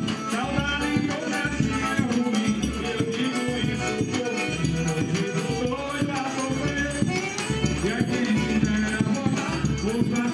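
Live forró pé-de-serra music: a piano accordion playing a melody over the steady beat of a zabumba bass drum, with high rattling percussion.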